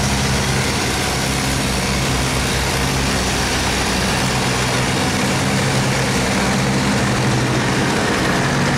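Boat engine running steadily with a low hum, over a constant rush of churning water.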